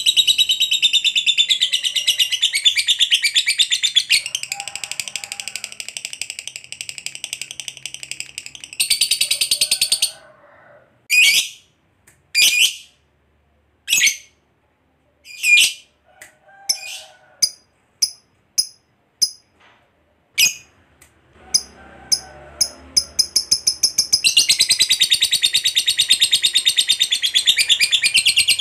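Masked lovebird giving its long rapid chattering trill ('ngekek panjang'), shrill and continuous for the first nine seconds or so. It then breaks into single sharp chirps with short silences between them, and near the end launches into another long unbroken trill.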